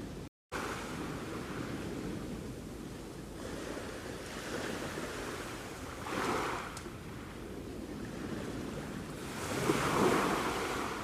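Sea waves on a shore: a steady rush of surf, with two louder waves breaking, about six seconds in and near the end. The sound cuts out completely for a moment just after the start.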